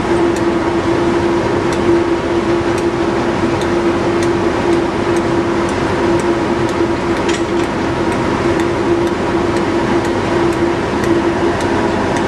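Class 37 diesel locomotive's English Electric V12 engine idling with a steady drone, over which a Spirax valve on the locomotive gives a light, sharp click that repeats about every second.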